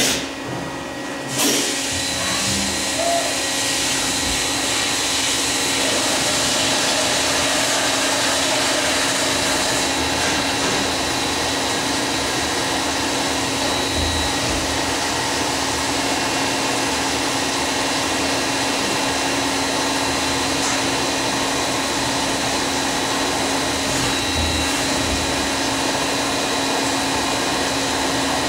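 Fadal CNC vertical machining centre cutting a metal handle blank under flood coolant: a steady hiss of coolant spraying over the cut with a constant machine tone underneath. It starts up and settles about a second and a half in and then runs evenly.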